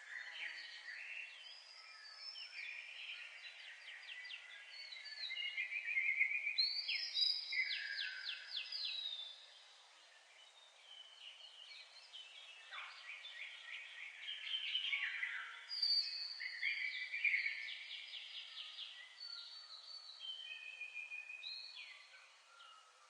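Songbirds singing in long runs of rapid trills and chirps, phrase after phrase with short gaps.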